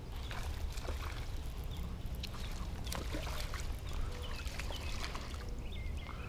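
A small bass on the line splashing at the water's surface as it is reeled toward the bank: a string of short, light splashes, with birds chirping faintly.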